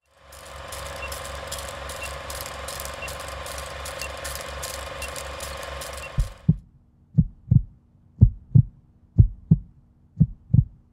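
Edited intro soundtrack: for about six seconds a steady hum with rapid mechanical ticking and a faint beep once a second, then deep heartbeat-like double thumps, about one pair a second.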